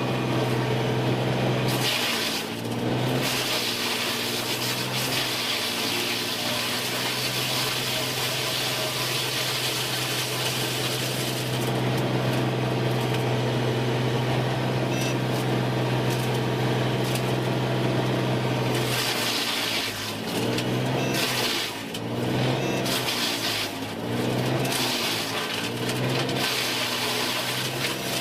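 Machinery running: a steady hum under a rush of noise, with sweeps rising and falling in pitch a few seconds in and again about twenty seconds in.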